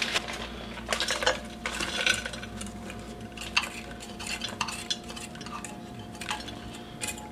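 Frozen pineapple chunks scooped with a stainless steel measuring cup and dropped into a ceramic slow cooker crock: scattered clinks and rattles of the metal cup and hard frozen pieces.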